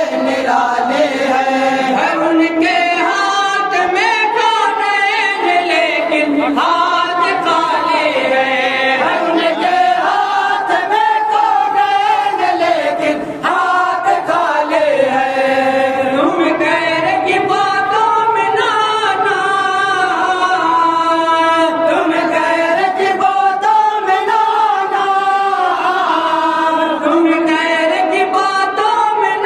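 A group of men chanting verses together without instruments, one lead voice with others joining in a slow melody of long held notes that rise and fall.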